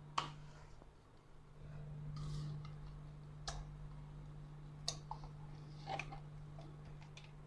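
Faint kitchen handling sounds as yogurt is taken out of its box: a few scattered light clicks and a brief soft scrape over a low steady hum.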